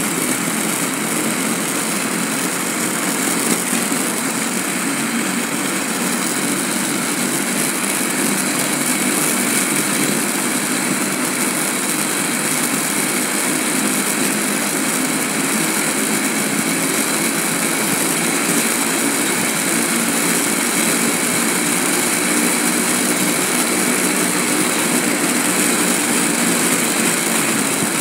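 Inline skate wheels rolling over asphalt: a steady, gritty rolling rumble that keeps on without a break.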